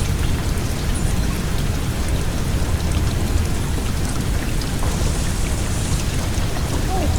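Steady rain noise mixed with the low, even whir of a fan, running without a break.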